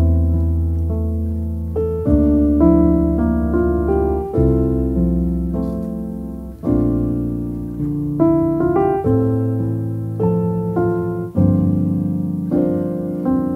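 Background piano music: slow chords over a deep bass, a new chord struck every two seconds or so and left to fade.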